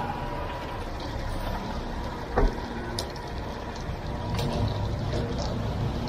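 Ready-mix concrete truck's diesel engine running steadily, broken by a few short, sharp knocks.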